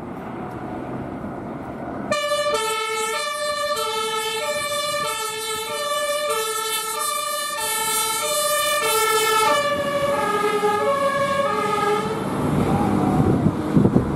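German fire engine's two-tone siren (Martinshorn) switching steadily between a high and a low note, starting about two seconds in after a low engine rumble. Its pitch drops as the truck passes and then fades as it drives away, giving way to a louder, uneven low rumble near the end.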